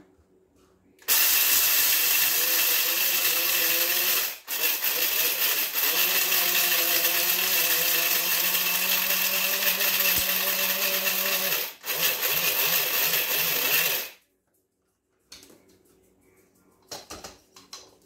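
Small electric blade coffee grinder running loud, grinding Glass Gem corn kernels into cornmeal. It runs in three pulses, with brief breaks about 4 and 12 seconds in, and stops about 14 seconds in.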